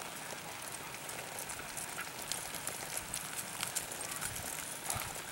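Horse galloping on a soft dirt arena: faint, irregular hoofbeats in a steady outdoor background hiss.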